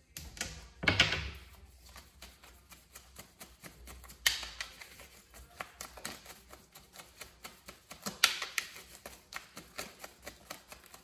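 A deck of tarot cards being shuffled by hand: a quick run of soft card clicks, with three louder swishes spread a few seconds apart.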